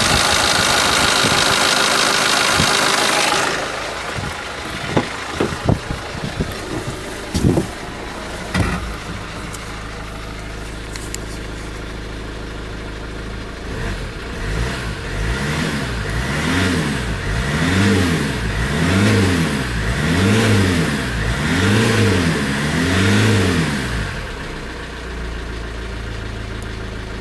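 2012 SsangYong Korando's 2.0-litre e-XDi200 turbo-diesel engine running at idle, loud at first and then quieter, with a few sharp knocks a few seconds in. From about halfway it is revved about six times in a row, each rev rising and falling in pitch, then it settles back to a steady idle.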